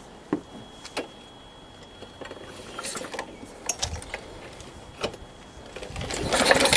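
Sharp clicks and knocks of a ride-on lawn mower's controls being worked as the choke is set, then a louder scraping rattle near the end.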